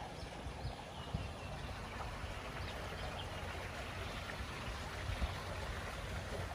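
Wind on the microphone outdoors: a steady rushing hiss with uneven low buffeting. A few faint, short, high whistles sound through it.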